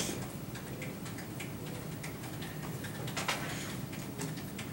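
Scattered, irregular light clicks of buttons being pressed as a list of numbers is keyed into a TI-84 calculator, one sharper click a little past three seconds in, over steady low room noise.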